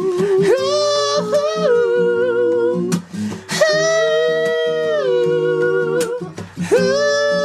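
Song accompaniment with acoustic guitar and three long, wordless held vocal notes that slide into pitch.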